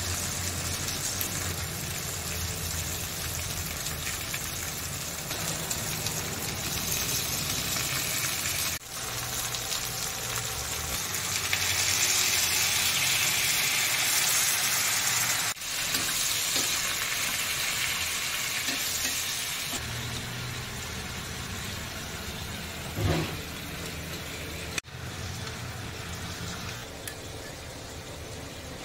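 Food frying in hot oil, a steady sizzle that swells louder for a few seconds midway, with a short knock late on.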